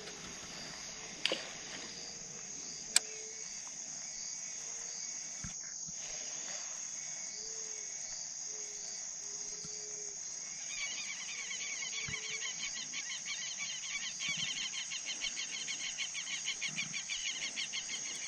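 Steady high insect buzz, joined about eleven seconds in by a louder, rhythmically pulsing insect trill. Two sharp clicks in the first few seconds, the second the loudest sound.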